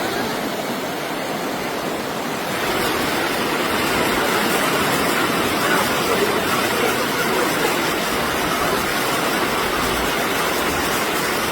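Floodwater rushing in a steady, loud roar with no distinct tones, a little louder from about two and a half seconds in, then cutting off abruptly near the end.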